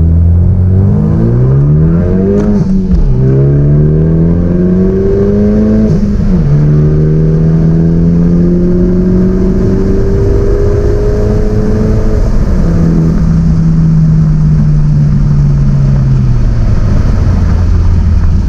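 2016 Hyundai Veloster Turbo's 1.6-litre turbocharged four-cylinder under hard acceleration, heard inside the cabin. The engine note climbs with the revs, drops at upshifts about three and six seconds in, then makes a long pull to about 5,500 rpm. About twelve seconds in the driver lifts off the throttle and the engine settles to a lower, steady running note.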